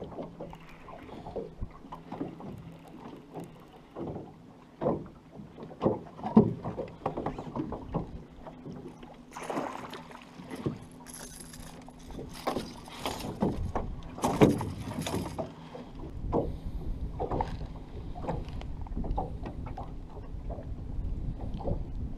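Northern pike being fought and landed in a small aluminum boat: a string of knocks and thumps on the metal hull, with bursts of thrashing in the middle, over wind and a steady low hum.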